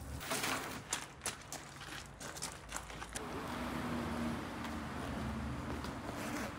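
Gloved hands mixing a basin of chopped raw meat and fat, a run of irregular clicks and squishes as handfuls are turned over. About three seconds in this gives way to steady outdoor background noise with a faint low hum.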